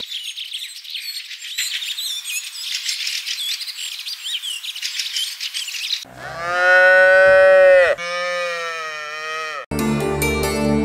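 Birds chirping for about six seconds, then a newborn calf mooing twice: two long calls of about two seconds each that drop in pitch at the end. Music begins near the end.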